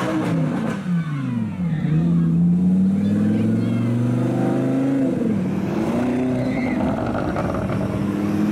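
Lamborghini Huracán's V10 engine pulling away. The revs fall in the first second or so, climb for about three seconds, drop with an upshift around the middle, then run steadily before rising again near the end.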